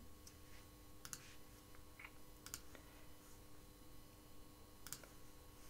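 Near silence with a few faint, scattered clicks of a computer keyboard and mouse over a faint steady hum.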